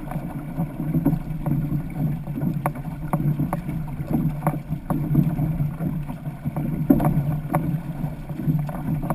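An outrigger canoe under way at racing pace: water rushes steadily along the hull, and paddle blades splash in at a quick, even stroke rhythm, roughly every two-thirds of a second.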